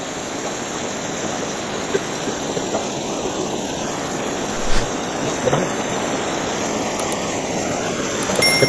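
A steady rushing noise with no clear pitch, with a few faint brief voices under it.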